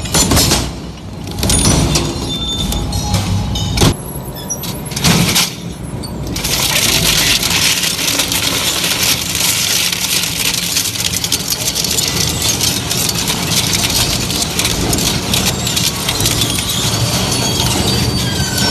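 Industrial crushing machine breaking up material: irregular crunches and bangs for about the first six seconds, then a steady, dense grinding and crackling that runs on.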